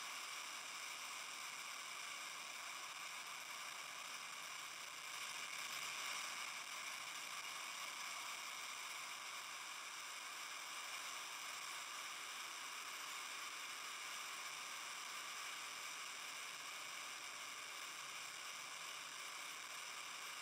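RS-25 liquid-fuelled rocket engine firing at steady thrust during a static test, heard as an even, hissing rush with little deep rumble.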